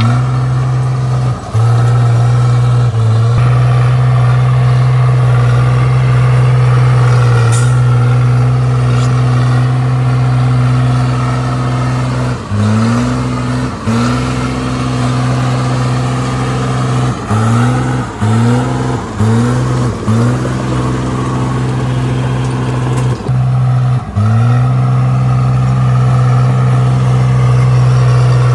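Komatsu D37P bulldozer's diesel engine running steadily at high speed. Between about twelve and twenty-four seconds in, the engine speed dips briefly several times and climbs back each time.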